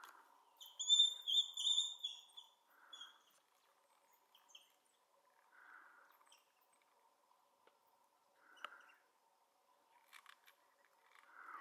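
African wild dogs twittering: a run of high-pitched chirping calls, loudest in the first three seconds, then a few fainter chirps and soft rustling.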